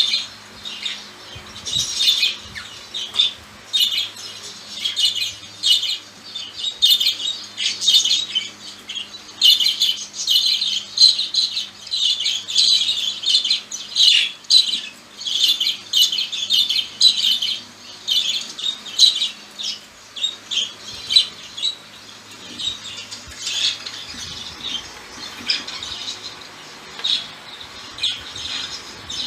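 Two pet budgerigars chattering in their cage: rapid high warbles, chirps and squawks that come thick and fast and are busiest in the middle.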